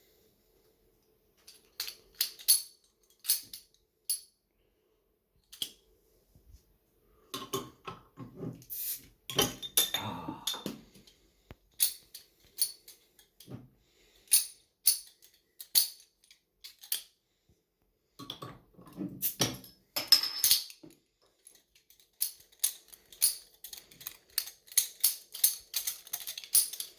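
Sharp metallic clicks and jingles in irregular bursts with short silent gaps, coming thicker and quicker near the end.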